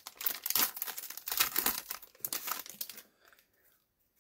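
A stack of trading cards being shuffled through by hand: a dense, irregular rustle of card sliding against card that stops about three seconds in.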